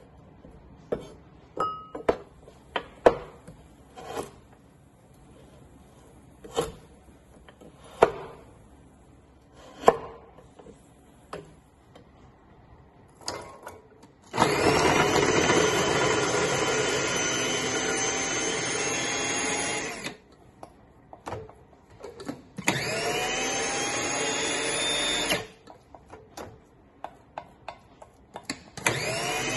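A kitchen knife cuts garlic cloves on a wooden cutting board, giving irregular sharp knocks. About halfway through, an electric food processor starts with a rising whine and runs for several seconds chopping garlic and ginger. It stops, runs again for a few seconds, and starts a third time near the end.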